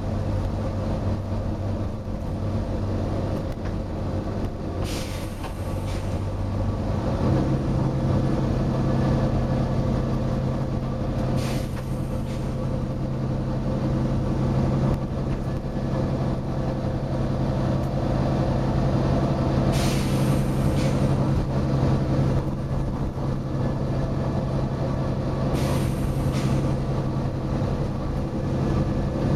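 Volvo B9TL bus's diesel engine running steadily, its pitch stepping up about seven seconds in, with four short hisses of air from the bus's air brake system spread through the stretch.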